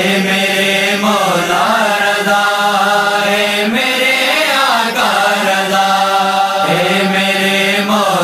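A vocal chorus chanting in phrases a couple of seconds long over a steady low drone: the voice-only backing of a devotional manqabat between the reciter's verses.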